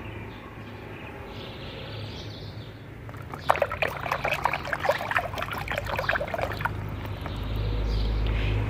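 Water sloshing and splashing in a plastic tub as a hand swishes plastic toy dinosaurs through it, a dense run of splashes lasting about three seconds in the middle. A low rumble builds near the end.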